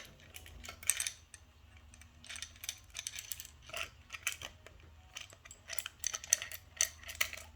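Elevator hoistway access key switch and its metal keys being handled, clinking and rattling in irregular short clicks.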